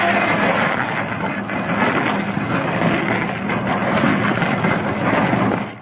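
Stump grinder working: its engine running under load amid a dense, steady grinding and crushing noise of wood, which stops abruptly at the end.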